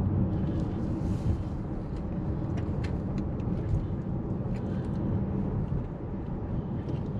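Car driving on a city street, heard from inside the cabin: a steady low rumble of engine and tyre noise, with a few faint ticks.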